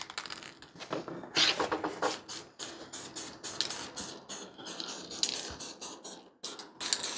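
Army Painter Fur Brown aerosol primer can being shaken, its mixing ball rattling rapidly, with short hissing bursts of spray.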